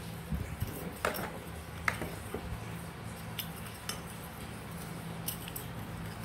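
Light, scattered clicks and clinks of an electric fan's metal motor parts, the aluminium housing and stator, being handled and fitted together by hand. A faint steady low hum runs underneath.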